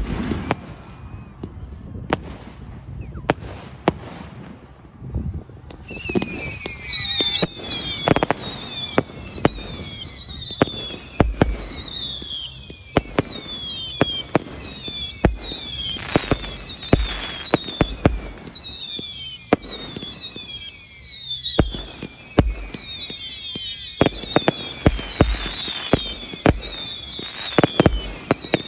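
Fireworks display: a rapid, irregular run of sharp bangs from aerial shells bursting. From about six seconds in, many overlapping whistles fall in pitch among the bangs.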